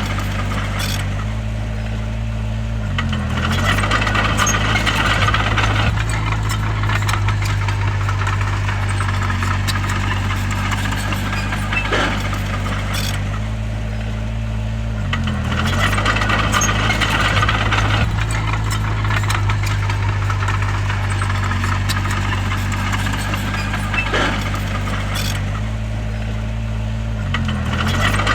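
Bulldozer's diesel engine working steadily. Three times, a dozen seconds apart, its pitch briefly sags and recovers, and a few seconds of louder rattling and clanking follow.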